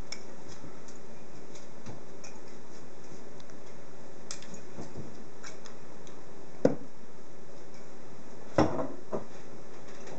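Light clinks and knocks of a metal shaker tin and glass being flipped, caught and set down on a bar top, with two louder knocks about six and a half and eight and a half seconds in, the second followed by a couple of smaller ones. A steady hum runs underneath.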